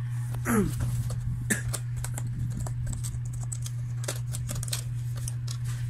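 Hands opening a small cardboard box, peeling its seal and prying the end flap: a quick, irregular run of small clicks, taps and scrapes of paperboard, over a steady low hum.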